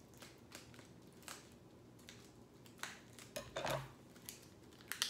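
Faint handling noise of a vinyl record and its packaging: scattered light clicks, taps and short rustles, with a louder rustle a little over three seconds in and a sharp click near the end.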